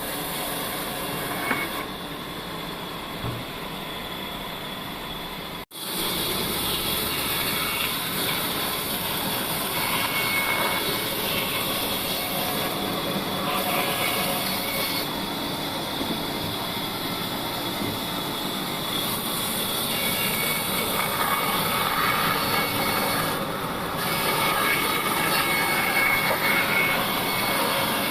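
An old bandsaw sawmill running and cutting through a dry log: a steady, noisy running of the blade and motor that swells and eases a little as the cut goes on. It drops out abruptly for an instant about six seconds in.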